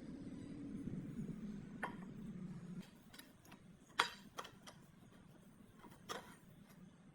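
A low steady hum that cuts off about three seconds in, with a handful of sharp clicks and taps scattered through, the loudest about four seconds in.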